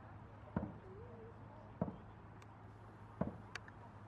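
Dragon boat drum beaten at a steady stroke rate, a single thump about every second and a third, three beats in all.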